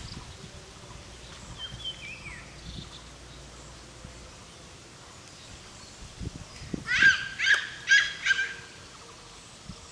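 An animal gives four short, high-pitched calls in quick succession about seven seconds in, after a fainter falling call near two seconds in.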